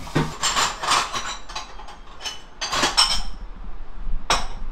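Tableware clinking and knocking on a table as dishes and utensils are handled and set down: several short clinks, with one sharp knock near the end.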